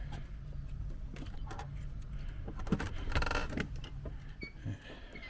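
Keys jangling in a short rattle about three seconds in, with a few small clicks, over a low steady hum.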